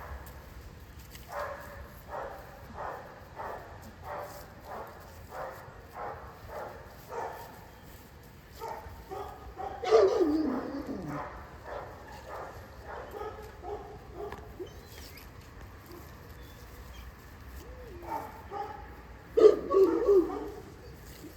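Czech Shepherd puppy barking in a steady series of short high yaps, with one louder bark sliding down in pitch about halfway through and a loud flurry of barks near the end.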